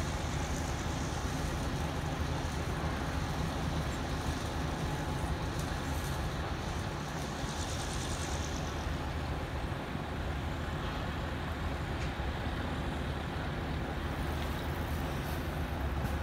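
Steady low rumble of vehicle noise, with a high hiss that fades out about eight or nine seconds in.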